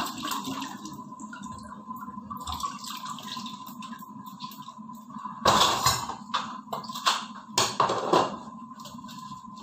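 Water running and splashing at a kitchen sink as food is washed and handled, with two louder rushes of sound a little past the middle. A faint steady high tone sits underneath.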